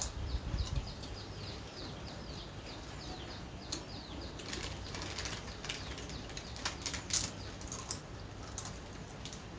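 Foil chip packets crinkling and potato chips being crunched, in sharp crackles that come mostly in the second half. Over the first few seconds a bird chirps in a fast run of short falling notes.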